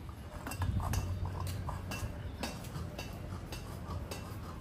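A French bulldog puppy's claws clicking on a plastic chair seat as it shifts its feet: light, irregular ticks.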